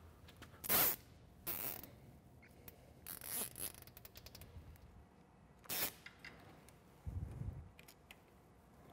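Faint sounds of nylon zip ties being pulled tight around wiring: several short zipping rasps. A few dull low bumps follow near the end.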